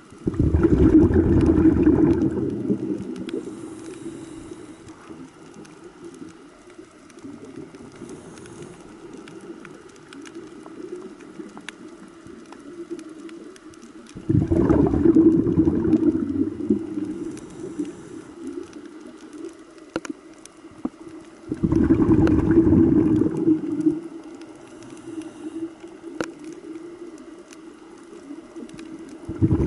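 Scuba diver's exhaled bubbles gurgling out of the regulator underwater, in bursts of about two seconds that come four times, with quieter water noise and a few faint clicks between them.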